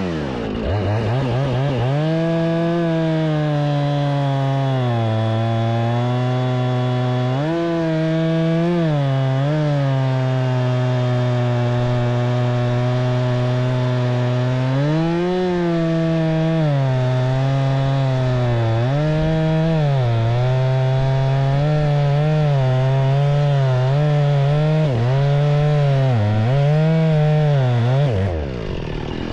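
Jonsered two-stroke chainsaw revving up and cutting through a cherry round. Its engine note sags under load and picks up again many times, with quicker dips toward the end, and falls away as the throttle is let off just before the end.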